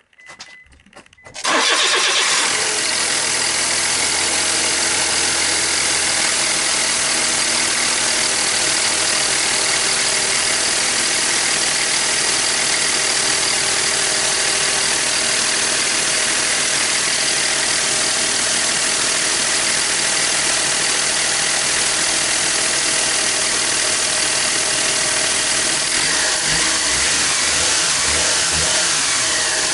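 Mitsubishi Minica H42V's three-cylinder engine starts about a second and a half in and then idles steadily, with a rustling, rattling 'shara-shara' noise over it. The owner suspects the water pump is making that noise.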